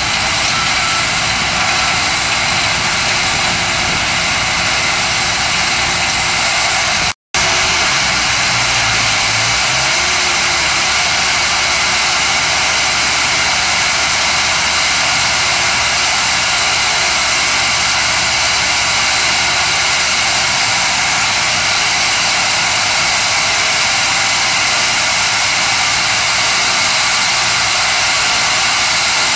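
Homemade vibrating topsoil screener running: a loud, steady mechanical hiss and rattle with no change in pace. It cuts out for a moment about seven seconds in.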